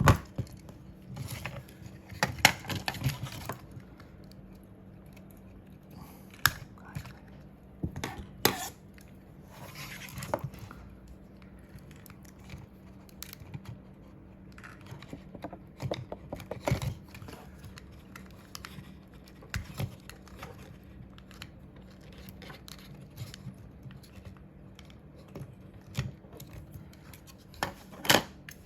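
Small plastic parts and hand tools handled at a workbench during a computer-mouse switch repair: irregular clicks, taps and short scrapes, with a faint steady hum underneath.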